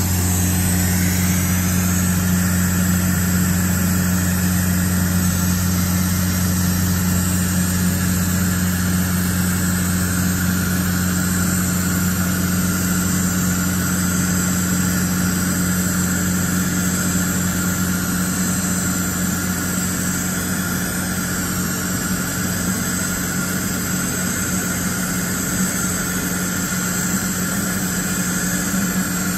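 2015 DMG Mori DMU 125 monoBLOCK 5-axis machining center running with a steady hum while its table traverses slowly under a dial test indicator during a table-flatness check. A higher whine settles slightly lower in pitch in the first couple of seconds, then holds steady.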